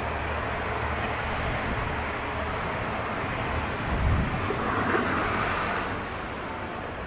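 Diesel train on the non-electrified Dosan Line running by: a steady engine drone and rumble, swelling briefly about four seconds in.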